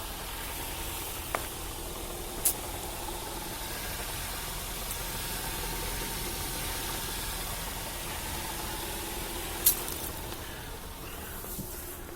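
Ford Fusion engine idling steadily, with three sharp knocks, about a second in, at two and a half seconds and again near the end. The knock comes from the gearbox area and appeared after the clutch and release bearing were replaced.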